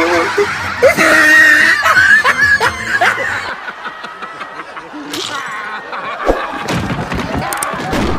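People laughing hard, with high shrieking laughs, over background music.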